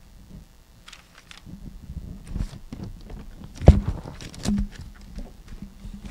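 Handling noise on a handheld microphone: scattered knocks and rubbing, with one sharp knock a little past halfway as the loudest.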